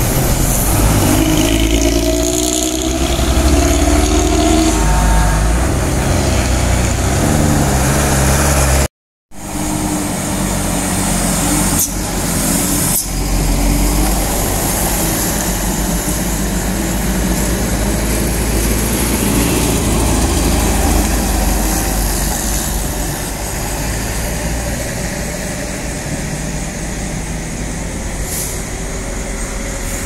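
Diesel engines of heavy vehicles passing close by on a road: a tour bus going past, its engine pitch climbing over the first few seconds, then, after a brief cutout about nine seconds in, a truck's engine running steadily. A couple of sharp clicks come a few seconds after the cutout.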